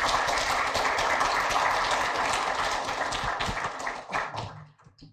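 Audience applauding, many hands clapping together, which thins out and dies away about four and a half seconds in.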